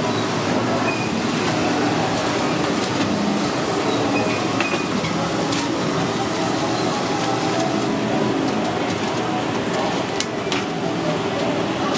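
Steady din of a busy food-hall kitchen, a rumbling wash of background noise with indistinct voices mixed in. A couple of sharp clicks come near the end as metal tongs handle the chicken.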